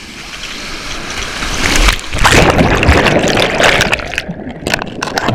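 Water rushing and splashing around riders sliding down a water-park slide, building to a loud rush in the middle and easing off near the end with a few sharp splashes.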